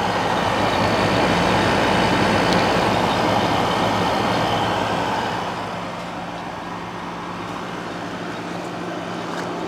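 1996 Whirlpool Coolerator 7000 BTU window air conditioner running on low cool, compressor and fan on: a steady hum under a rush of air, louder at first and easing a little past the middle. It has a slight metallic noise, which the owner thinks may go once it warms up.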